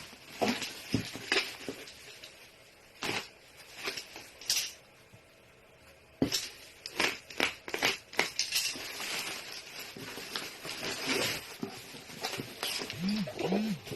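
Irregular clicks, scrapes and rustling of packaging being handled and torn open, with two short pitched sounds near the end.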